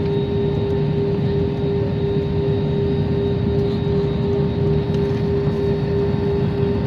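Jet airliner's engines heard from inside the cabin while taxiing: a steady hum with one constant tone over a low rumble.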